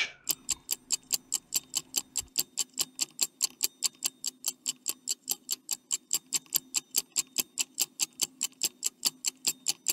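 Ticking countdown-timer sound effect, a stopwatch ticking evenly at about five ticks a second.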